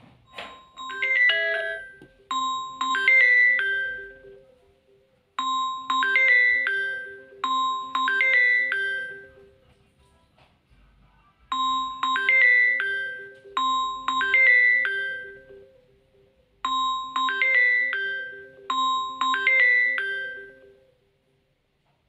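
Samsung Galaxy M02 incoming-call ringtone playing: a bright, marimba-like chiming melody whose phrase comes round four times with short gaps, stopping about a second before the end.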